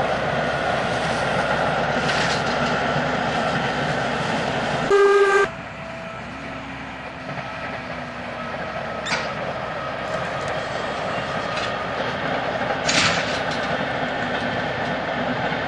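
Steady rumble of a passing passenger train, with a short train horn blast on a single note about five seconds in. After a sudden change the sound is quieter: a yellow DB class 704 diesel catenary-maintenance railcar running past, its engine faint under the track noise.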